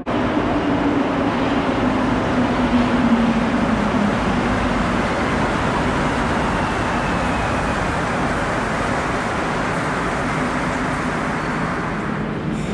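Rubber-tyred Montreal metro Azur train pulling into the station: loud, steady running noise, with the motor whine falling in pitch as the train slows.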